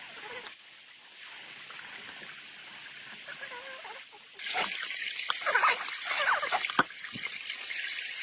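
Water trickling, with a louder stretch of splashing in the middle.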